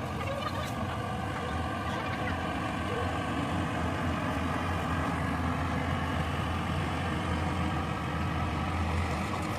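Diesel engine of heavy farm machinery running steadily at an even speed, a low, constant drone.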